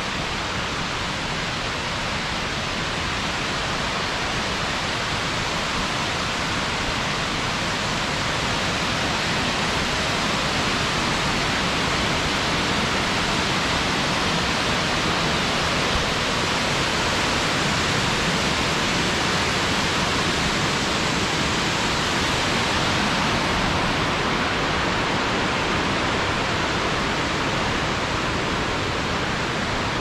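Yudaki waterfall, a broad cascade sliding down a long rock slope, making a steady rush of falling water. It grows a little louder about a third of the way in and eases slightly near the end.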